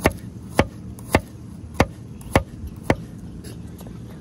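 Six hard, evenly spaced blows, about two a second, like a tool chopping or hammering, then a pause of about a second near the end. A steady low hum runs beneath.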